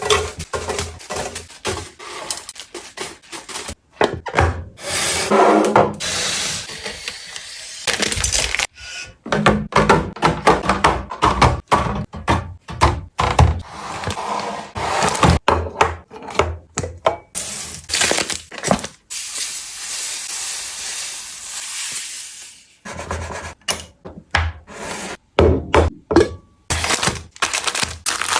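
Food containers and packaging being handled and set down while a fridge is restocked: a string of clacks, knocks and taps, broken by a few longer noisy stretches lasting a second or more.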